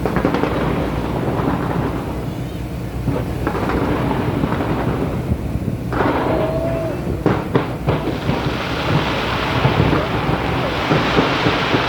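New Year fireworks bursting: a continuous low rumble of booms, with a few sharp cracks about seven seconds in and a brighter crackling hiss after them.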